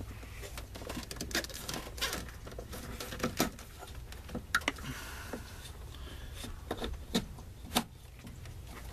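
Plastic wiring harness clips and connectors being handled and snapped onto a mounting plate in an engine bay: irregular sharp clicks and rustling of plastic loom, with a faint low hum underneath.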